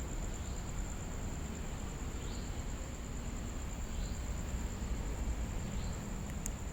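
Insects trilling steadily at a high pitch, with a faint short chirp repeating about every two seconds, over a low rumble of outdoor background noise.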